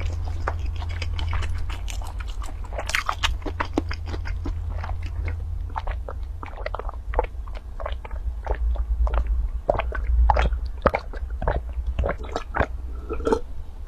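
Close-miked mouth sounds of chewing crunchy fried food: many short crunches and wet clicks. In the second half she drinks from a cup, and the sounds become sips and swallows.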